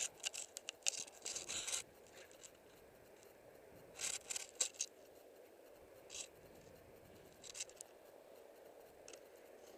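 Skis scraping across snow in short bursts while turning through moguls: a cluster of quick scrapes in the first two seconds, another about four seconds in, and fainter single scrapes later.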